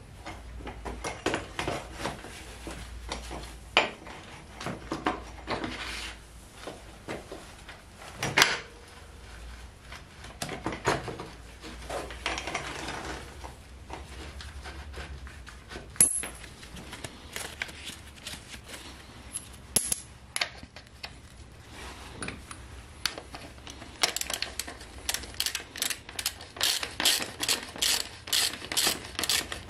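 Scattered metal clicks and knocks as a dirt bike's rear wheel and axle are worked into the swingarm, with two sharp clanks about 8 and 16 seconds in. From about 24 seconds a socket ratchet clicks in a quick, steady run as the rear axle nut is spun on.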